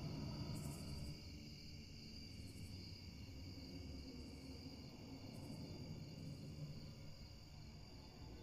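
Faint night ambience of crickets chirping steadily, with a low hum beneath, slowly fading.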